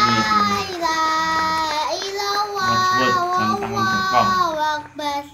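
A voice singing a melody in long held notes that slide from one pitch to the next, breaking off near the end.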